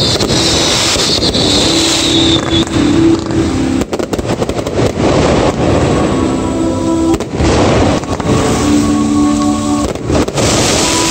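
Fireworks going off over loud music played for a water-fountain show: a dense rushing hiss, with a quick run of sharp bangs about four seconds in and single bangs later on.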